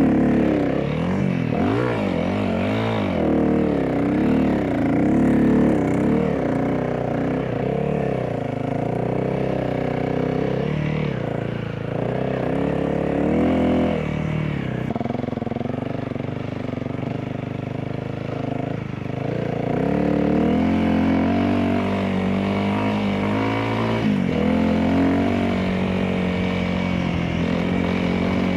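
Honda CRF300L's single-cylinder four-stroke engine, breathing through an opened airbox and a LeoVince exhaust on an ECU tune, revved up and down several times, then running at steadier revs with a few further rises in pitch.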